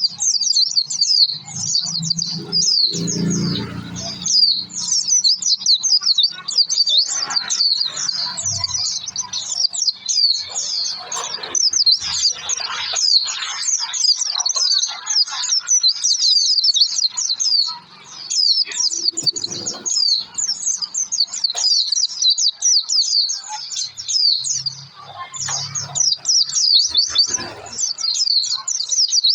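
A white-eye (pleci) singing a fast, unbroken run of high twittering chirps, with faint low background sounds now and then.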